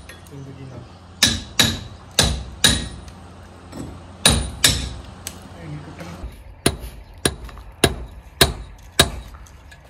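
Hammer driving a steel chisel into a brick-and-cement wall, about a dozen sharp metallic blows. They come at an uneven pace at first and about two a second near the end, chipping through hard-set masonry.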